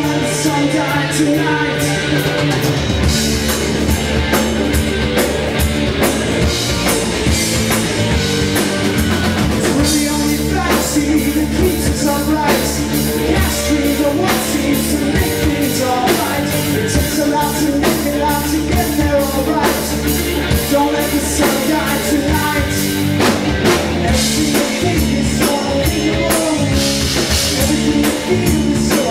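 Rock band playing live: distorted electric guitars, bass guitar and drum kit, with the bass and drums coming in fully about three seconds in and a steady driving beat after that.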